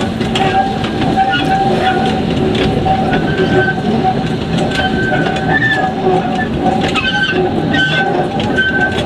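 Loaded narrow-gauge peat railway wagons rolling past close by, their steel wheels clattering on the track, with a steady squeal and short higher squeals from the wheels.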